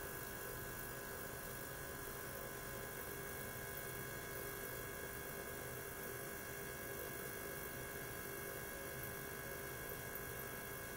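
Steady electrical hum with an even hiss and faint constant tones from running ultrasonic cleaning equipment, with no change in level.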